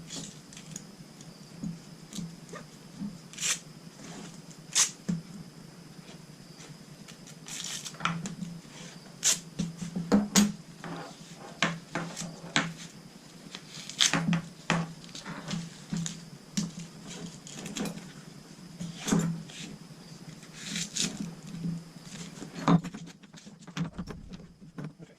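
Irregular clicks and knocks of climbing saddle leg-strap buckles and hardware being handled and unfastened, over a faint steady hum.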